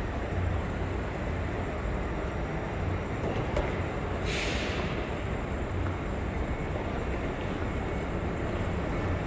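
Railway station ambience under a train shed: a steady low rumble, with one short hiss of air about four seconds in.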